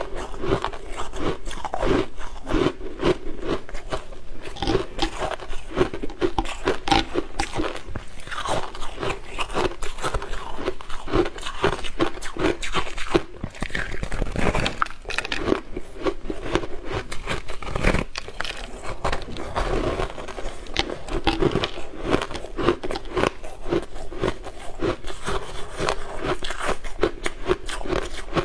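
Biting and chewing frosty, powdery ice crystals: a steady run of rapid crisp crunches as the frozen slab is bitten and chewed.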